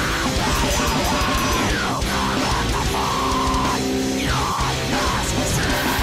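Mathcore song: loud, dense heavy music with distorted electric guitar.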